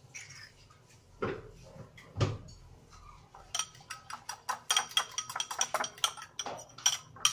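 A metal fork beating eggs in a bowl: two dull knocks, then from about halfway a quick run of sharp clinks against the bowl's side, several a second.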